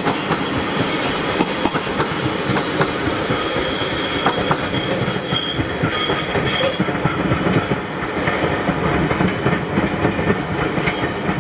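JR Hokkaido 733-series electric train passing and running off, its wheels clicking steadily over the rail joints. A high whine rides over the rumble in the middle and fades after about seven seconds.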